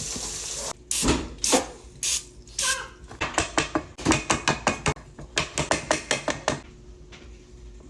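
A run of sharp clicks and knocks, a few at first and then a quick, fairly even series of about four or five a second, which stops shortly before the end.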